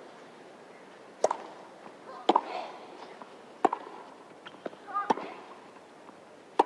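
Tennis rally: a racket striking the ball five times, about every second and a half, with a short grunt-like cry from a player on a couple of the strokes and a few fainter ticks between the hits.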